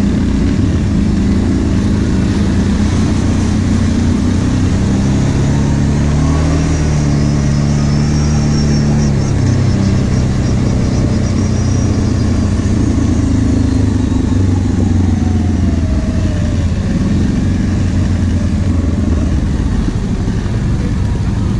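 ATV engine running while riding a dirt trail, its pitch rising and falling as the throttle changes, over steady rushing noise.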